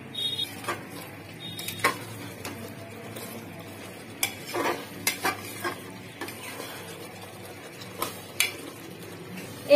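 A metal ladle stirring and scraping chicken korma in a pressure cooker, knocking against the sides of the pot several times, over a steady sizzle of the curry cooking on the heat.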